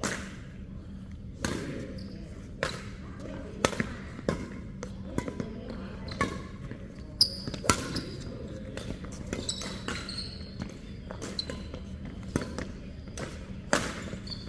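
Badminton rally in doubles: rackets striking the shuttlecock in sharp cracks about once a second, with a few short shoe squeaks on the court floor.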